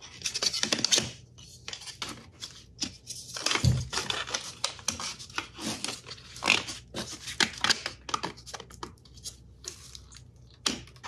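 3D-printed plastic parts being worked and forced together by hand: irregular scraping, clicking and crunching, with a heavier knock a little under four seconds in.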